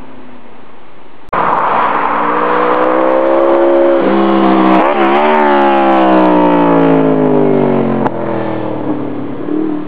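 Honda VFR750F's V-four engine through a complete RC30 racing exhaust system, revving hard. It cuts in loud about a second in, climbs in pitch, wavers once around the middle, then falls away steadily before dropping suddenly near the end.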